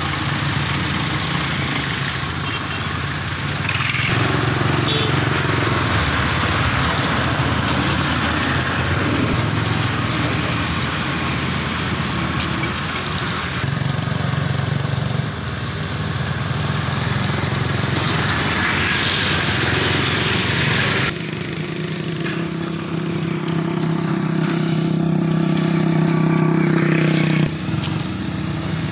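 Mini tractor's small petrol engine running steadily as it drives, with a few abrupt shifts in level and tone.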